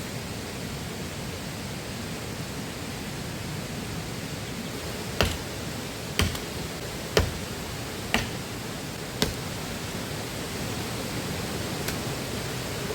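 Steady rushing of a flowing river. In the middle, five sharp knocks come one after another, about a second apart.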